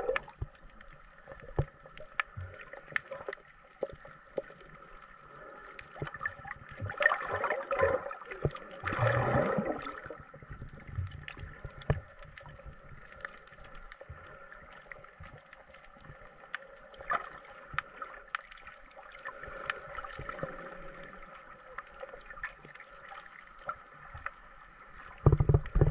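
Water heard underwater: a muffled wash with faint steady tones and scattered small clicks and crackles, a louder rush of moving water about seven to ten seconds in, and a loud low thump near the end.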